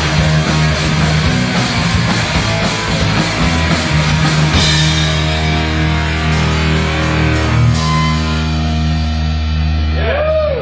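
Live heavy rock band playing loud: distorted electric guitars, bass and drum kit with cymbals. About eight seconds in the cymbals drop away and low held notes ring on.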